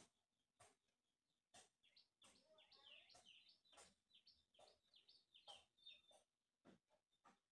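Near silence with faint bird chirping throughout, and a few soft clicks scattered through it.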